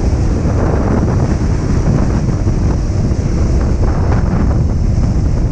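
Steady wind rushing over the microphone of a rider on a moving Honda CRF150F dirt bike, with the bike's single-cylinder four-stroke engine running underneath.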